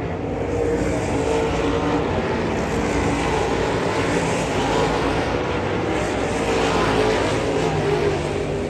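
Dirt late model race cars' engines running at speed, several engine notes overlapping and shifting in pitch as the cars circle the track.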